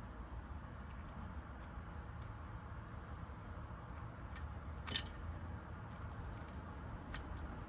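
Faint, scattered clicks of small metal lock parts and tools being handled while a door lock cylinder is rekeyed, with one sharper click about five seconds in, over a low steady hum.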